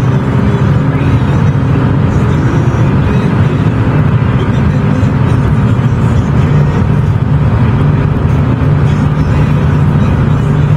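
Car driving at a steady speed: a loud, even drone of road and engine noise.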